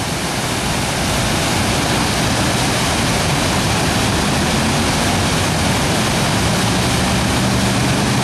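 Floodwater from heavy overnight rain pouring over a drop like a small waterfall: a loud, steady rush of falling water.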